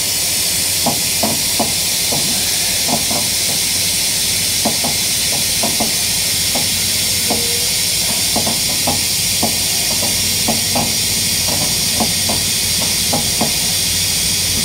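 Lorry air suspension letting out air in a long, steady hiss as the ride height is lowered, with faint scattered ticks beneath it.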